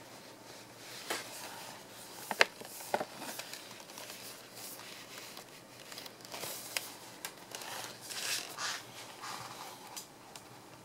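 Small cardboard product box being handled and turned over in the hands: fingers rubbing and tapping on the cardboard, with scattered light clicks and rustles. The sharpest click comes about two and a half seconds in, and a longer rustle a little before the end.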